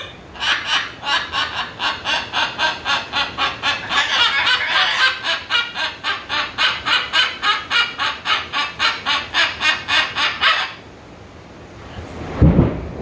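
A macaw calling in a fast, even run of short squawks, about four a second, that stops about eleven seconds in. Near the end comes a loud, low, brief thump.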